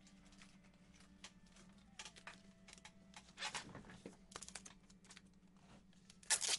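Faint rustling and light clicks of trading cards and plastic card holders being handled, with a brief louder rustle near the end.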